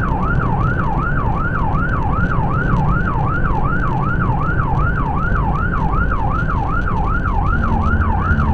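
Police cruiser's siren on a fast yelp, rising and falling about three and a half times a second without a break, over the engine and tyre rumble of the car driving at highway speed.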